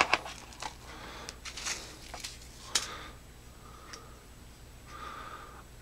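Handling noise as a flashlight is taken up and turned over: scattered light clicks and rustles over the first few seconds, with one sharper knock about three seconds in, then quieter.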